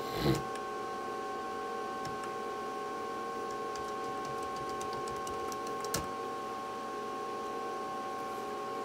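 A running Bitmain AntMiner S9 ASIC miner's two cooling fans, a steady hum with a few held whining tones. There is a short cough right at the start, faint light clicks around the middle and one sharper click about six seconds in.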